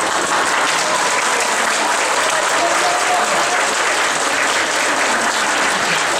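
Audience applauding steadily, a dense round of many hands clapping.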